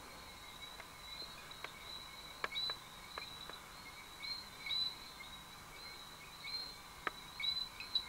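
Rainforest ambience of calling insects and small animals: a steady high-pitched drone with short chirps repeating on top of it and scattered sharp clicks.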